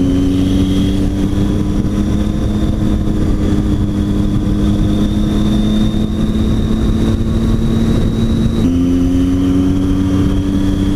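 Triumph Tiger 800 XC's inline three-cylinder engine running under way, its pitch slowly rising, then dropping suddenly near the end at a gear change and climbing again, over wind rush.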